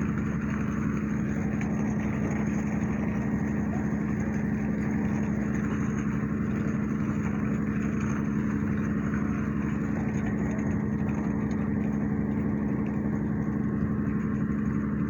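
An engine running steadily at a constant speed, a continuous hum with no change in pitch or level.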